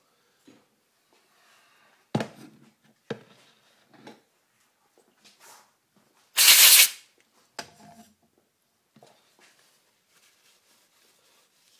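Hands handling motorcycle gearbox gears and parts on a workbench: several short knocks and clicks of parts being picked up and set down. About halfway through there is one loud, brief rustle.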